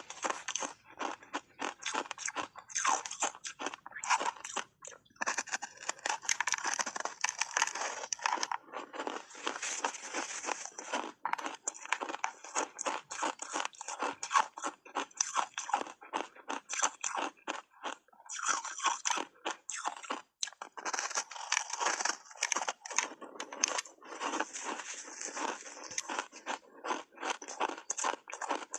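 Matcha-powder-coated ice bars being bitten and chewed close to the microphone: dense, irregular crunching and cracking of ice throughout.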